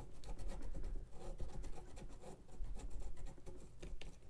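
Pumpkin being carved by hand: a blade scratching and scraping at the rind in quick, irregular strokes.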